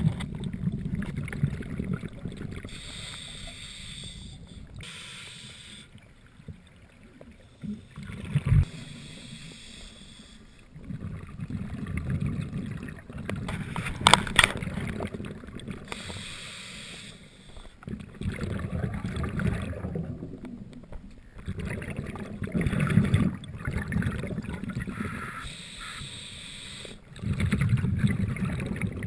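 Scuba breathing through a regulator underwater: hissing inhalations alternating with low rumbling bursts of exhaled bubbles, several breaths in a row. A sharp click sounds about halfway through.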